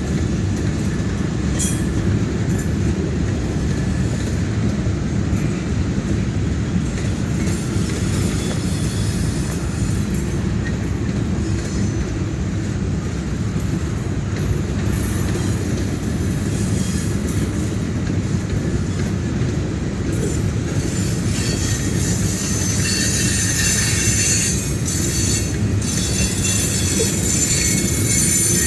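Train cars rolling past on the rails: a steady heavy rumble with wheel clatter, and metal-on-metal wheel squeal that grows louder and higher in the last third.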